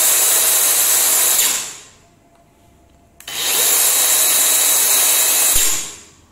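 Makita DUC252 36-volt cordless chainsaw revving with its chain running free, in two trigger bursts. The first is already running and winds down about a second and a half in. The second starts about a second later and runs about two and a half seconds before winding down.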